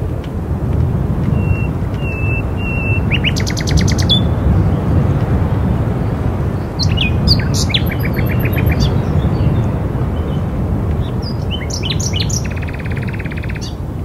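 Songbirds chirping and trilling in several short bouts: three short even notes, then quick trills and chirps, over a steady low rumble of wind.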